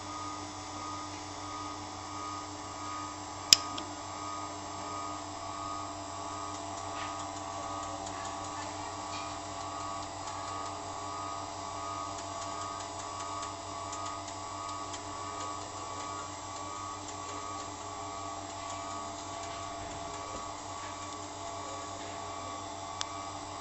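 A CNC knife-grinding machine running with a steady electric whine and hum. A sharp click comes about three and a half seconds in, and a smaller one near the end.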